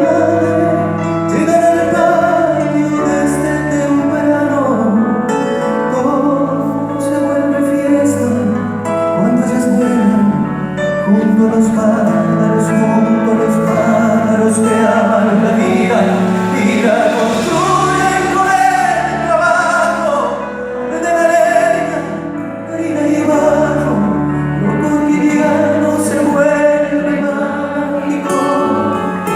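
Live Argentine folk song: singing over instrumental accompaniment, with a continuous melody.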